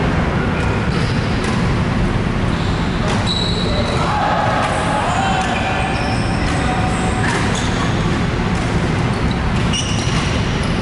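Badminton being played on an indoor court: sharp racket-on-shuttlecock hits and brief sneaker squeaks on the court floor over a steady low rumble of hall noise and distant voices.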